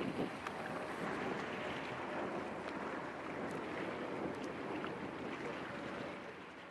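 Waterfront harbour ambience: a steady rush of wind and water with the hum of distant boat engines, fading out near the end.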